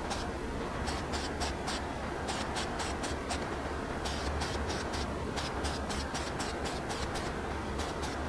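Aerosol spray can of primer hissing in many short bursts of differing length as brake calipers get a coat of primer, with a steady low hum underneath.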